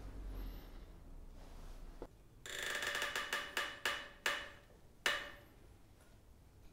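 T-handle wrench tightening the crank bolt of a bicycle crankset: a run of sharp metallic clicks with a ringing tone, beginning about two and a half seconds in and spaced about a third of a second apart, then one more click about five seconds in.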